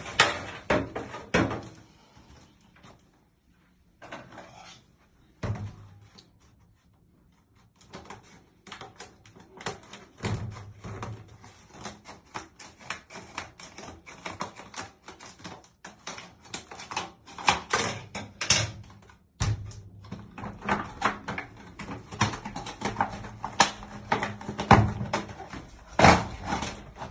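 Shower hose and its fittings being handled: a few scattered clicks and knocks at first, then about eight seconds in a dense run of clicking and rattling with occasional louder knocks.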